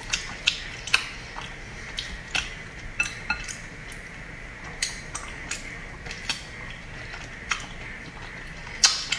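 Irregular sharp clicks from eating salmon sashimi with wooden chopsticks: chopsticks knocking against the glass dipping bowl, along with wet mouth clicks from chewing. The loudest click comes near the end.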